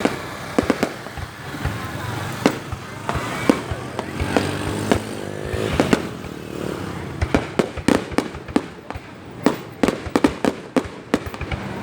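Fireworks display: scattered sharp bangs, then a dense run of rapid crackling pops from about seven seconds in.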